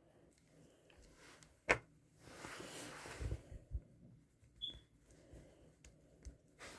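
Handling noises in a small room: a sharp click, then a second or so of rustling with a couple of soft knocks, and a few small ticks.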